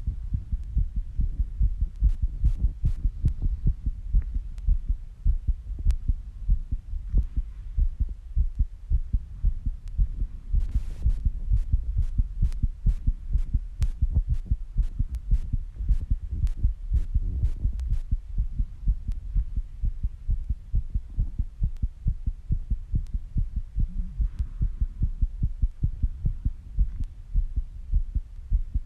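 A person's heartbeat, recorded up close as a fast, regular train of low thumps: the heart racing after squats and rebreathing. There are occasional faint clicks.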